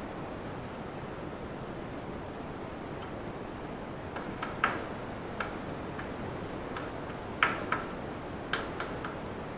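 Hands patting a ball of arepa corn dough flat between the palms: about a dozen short, irregular pats, some in quick pairs, starting about four seconds in, over a steady background hiss.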